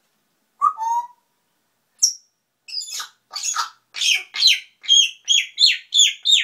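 African grey parrot calling: one short lower call about half a second in, then from about two seconds a quick run of high-pitched whistles, each falling in pitch, a little over two a second.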